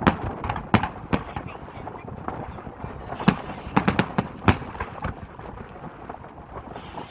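Aerial fireworks bursting: a series of sharp bangs, three in the first second and a quick cluster of four or five about three to four and a half seconds in.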